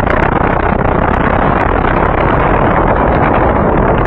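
Loud, steady wind buffeting the microphone, a rushing noise with no clear engine note in it.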